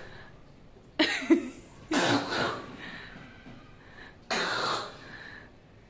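Three short, rough coughs: the first about a second in, the second a second later, and a longer, breathier one past the middle.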